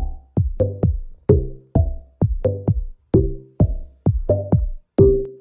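Background electronic music with a drum-machine beat: sharp hits about two or three times a second, each followed by a short, quickly fading pitched tone.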